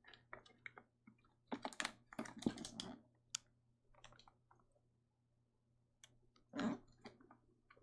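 Faint scattered clicks and taps of a computer keyboard and mouse, in short clusters, with one brief fuller sound late on.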